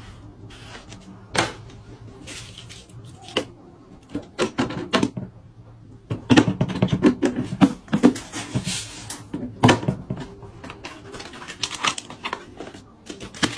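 Plastic kitchen storage containers and lids clicking, knocking and clattering as they are handled and opened, with a busier run of clatter in the middle.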